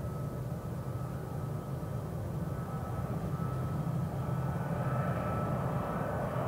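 A Boeing C-17A Globemaster III's Pratt & Whitney F117-PW-100 turbofan engines running at taxi power: a steady low rumble with a thin whine on top. The sound grows a little louder and brighter in the second half as the aircraft turns toward the camera.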